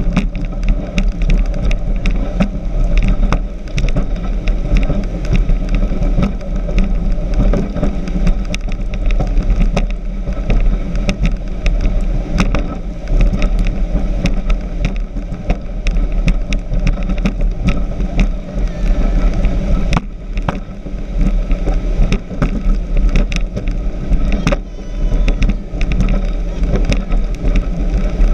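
Speedboat running fast over the sea: loud engine and hull noise mixed with wind buffeting the microphone and spattering spray, full of irregular knocks.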